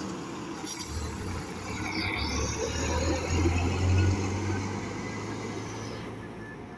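Intercity coach's diesel engine rumbling as the bus pulls across the yard and drives away, loudest about three to four seconds in and then fading into the distance.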